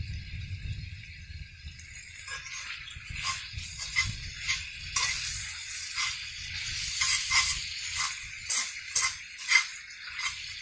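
Food sizzling in a cast iron pan, a steady hiss from about two seconds in, with about a dozen sharp clinks and scrapes of a utensil against the pan.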